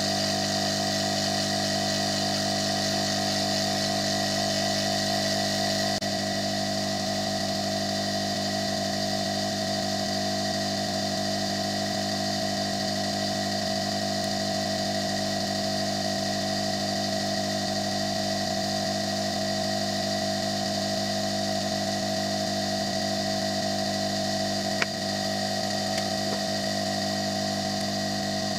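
No-name ZD-939L hot air rework station blowing at its maximum settings: its air blower runs as a steady drone with several constant tones, easing slightly about six seconds in. A single short click comes near the end.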